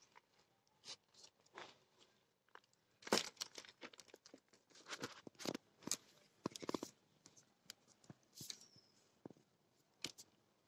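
Hands working through loose potting soil and pulling rooted horsetail (water bamboo) clumps apart: scattered short crunches, rustles and tearing sounds, loudest about three seconds in.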